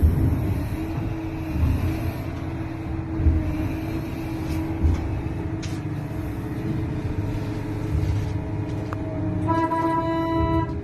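Large excavator's diesel engine running with a steady low rumble and a few knocks. Near the end a horn-like tone sounds for about a second.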